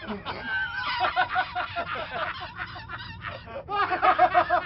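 Several men laughing hard, a honking 'ha-ha-ha' laugh in quick repeated pulses, coming in two spells, about a second in and again near the end.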